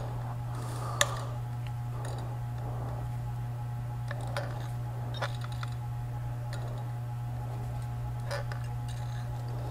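Manual caulk gun clicking a few times as its trigger is squeezed to run a bead of adhesive caulk, the sharpest click about a second in, over a steady low hum.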